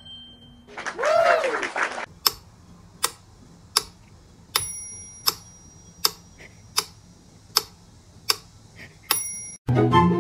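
A cat meows once, a short call rising and falling in pitch. Then comes steady ticking, about one sharp tick every three-quarters of a second, a few of the ticks with a brief metallic ring.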